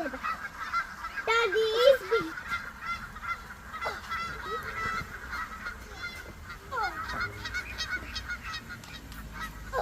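A flock of geese calling, a steady chatter of many overlapping calls, with one loud, wavering honk standing out about a second and a half in and a few shorter honks later.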